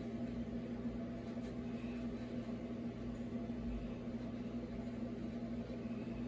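Steady low hum with a faint hiss under it: the background noise of a running motor or appliance in the room, with no change throughout.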